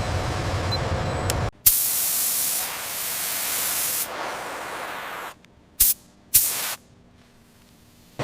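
A steady low rumble cuts off about one and a half seconds in. A long, loud pressurised spray hiss follows and fades away, then two short spray bursts come near the end.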